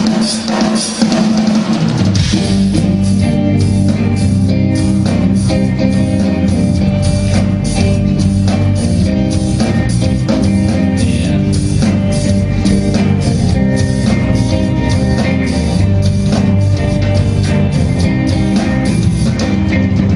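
Rock band playing an instrumental intro live on drum kit and guitar. The drums are busy in the highs for about the first two seconds, then settle into a steady, even beat under the guitar.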